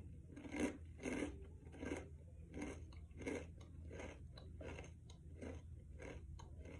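A person chewing a crunchy snack with the mouth close to the microphone, a steady run of soft crunches about one and a half a second.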